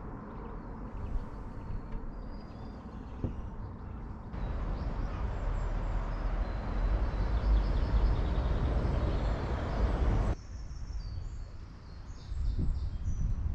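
Outdoor ambient noise, with low rumbling and faint hiss, changing abruptly twice as one location gives way to another; a few faint bird calls near the end.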